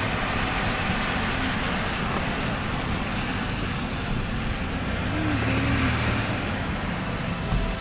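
Car on the move: steady road and engine noise with a low hum that comes and goes.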